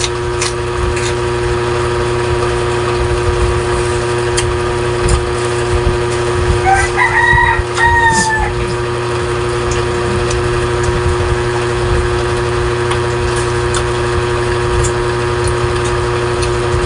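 A rooster crows once, about seven seconds in, a call of roughly two seconds that falls off at the end. Under it runs a steady machine hum with a constant tone.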